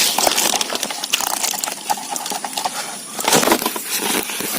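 A plastic bottle fish trap being opened and handled with small barbs (paral) inside: dense crackly rustling and many small clicks.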